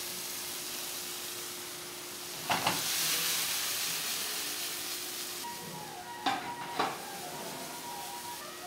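Mushrooms sizzling in a hot frying pan on a gas burner while a spatula stirs them, the sizzle swelling louder about two and a half seconds in. A spatula knocks sharply against the pan a few times, twice in quick succession past the middle.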